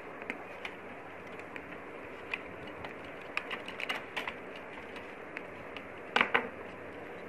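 Light plastic clicks and taps of fingers working a wire connector loose inside an opened projector, with a run of clicks about three and a half seconds in and a louder double clack just after six seconds, over a steady hiss.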